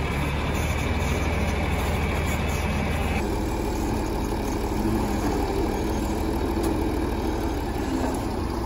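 John Deere 4320 tractor's diesel engine running steadily at low speed while its front loader works a round hay bale.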